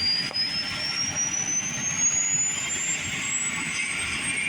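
Helicopter turbine engine whining, its high pitch climbing steadily as the engine spools up, over a broad rushing hiss and low rumble.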